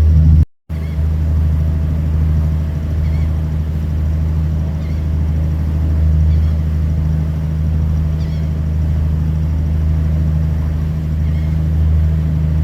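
Boat engine running steadily underway, a loud, even low drone, cutting out for a moment about half a second in.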